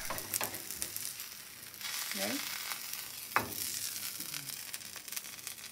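Omelette sizzling in a hot non-stick frying pan, a steady hiss, with scrapes and clicks of a spatula against the pan as the omelette is slid out onto a plate; one sharper knock about three and a half seconds in.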